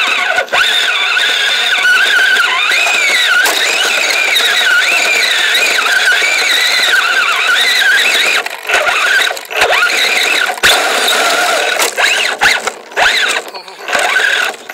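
Kyosho Blizzard RC snowcat's electric motor and chain drive whining, the pitch wavering up and down with the throttle, cutting out briefly several times in the second half.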